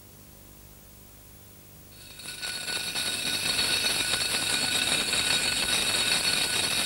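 Quiet for about two seconds, then a fast, continuous rattle fades in and holds steady.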